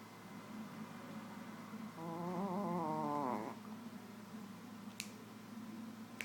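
Shih Tzu snoring: a low rough breathing sound, with one louder pitched snore about two seconds in that lasts about a second and a half and rises in pitch as it ends. Two sharp clicks near the end.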